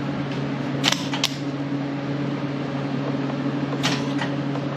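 Short crackling bursts of a MIG welder's arc as brief tack attempts, about a second in, again a moment later and near four seconds in, over a steady machine hum.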